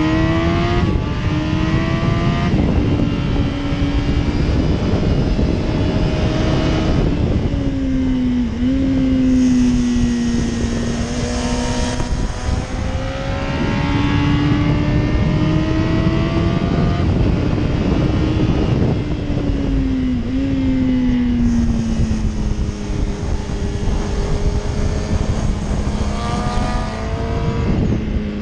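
Yamaha YZF-R1 (RN12) crossplane inline-four engine running hard at track speed, its pitch climbing and falling repeatedly as the rider accelerates, shifts gear and brakes. A heavy rush of wind noise runs underneath.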